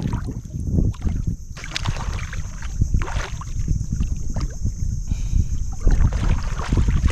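Muddy water sloshing and lapping around people wading chest-deep, with irregular splashes as one moves low in the water, and wind buffeting the microphone.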